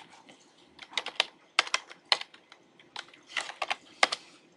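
Typing on a computer keyboard: a run of quick keystrokes in small clusters, starting about a second in, with one of the loudest strokes near the end.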